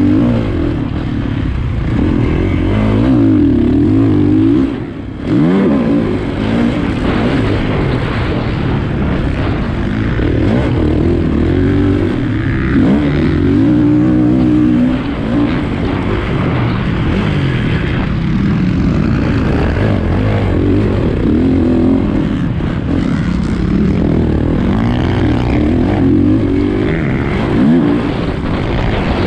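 Motocross bike engine heard from its onboard camera, revving up and down through the gears as it is ridden round a dirt track, with a brief throttle-off dip about five seconds in.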